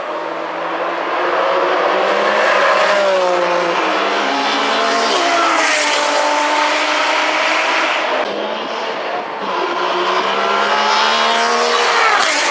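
Ferrari 599 GTO's 6.0-litre V12 accelerating hard past, the engine note climbing and then dropping several times as it runs up through the gears.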